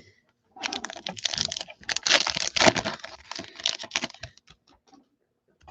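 Baseball card packs being handled and opened: a dense run of crinkling, crackling clicks from the pack wrappers and cards. It starts about half a second in and thins to a few scattered clicks after about four seconds.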